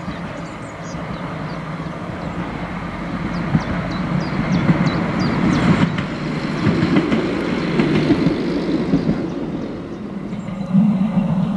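Narrow-gauge diesel railcar approaching and passing, its engine running and wheels clicking over the rails, loudest in the middle as it goes by. Birds chirp in the first moments, and near the end a louder engine sound cuts in suddenly.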